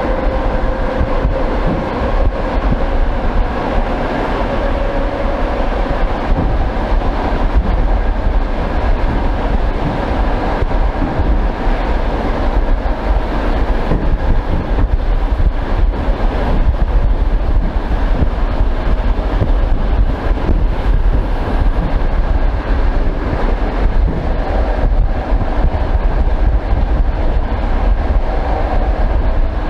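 Old suburban electric train running along the line, heard through an open, glassless window: a steady rumble with the clickety-clack of wheels over rail joints. A faint humming tone fades out in the first few seconds.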